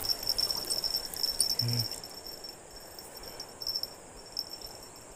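Chorus of insects, a steady shrill buzz that pulses finely, over a soft even rush.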